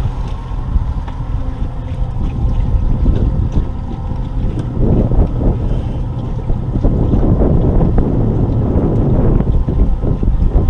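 Wind buffeting the microphone over the low, steady rumble of a small fishing boat's outboard motor running at trolling speed.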